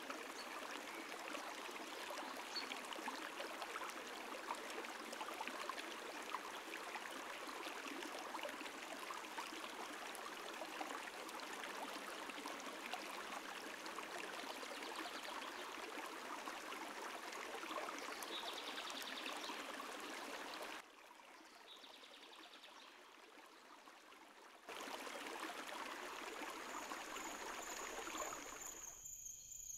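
Shallow stream flowing, a steady rush of running water; it drops quieter for a few seconds about two-thirds of the way through. Near the end the water fades and crickets take over with a steady high chirring.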